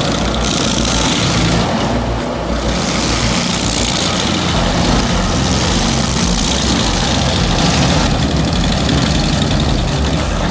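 A heavy machine's engine running steadily under load, with surges of harsher high-pitched noise coming and going.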